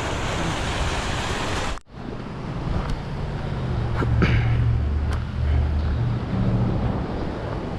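Mountain creek running, a steady rushing hiss of water. The sound breaks off for an instant about two seconds in, and after that wind gusts rumble on the microphone over the water.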